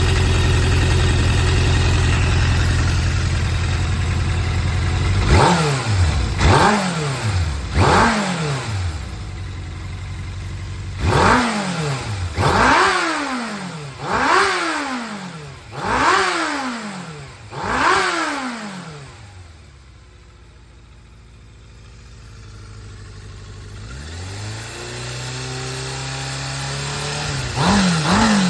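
Suzuki GSX400S Katana (GK77A) inline-four motorcycle engine idling, then blipped repeatedly, about eight sharp revs each rising quickly and falling back, before settling to a quieter idle and revving again near the end. It runs cleanly with no abnormal noise, which the seller takes for an engine in excellent condition.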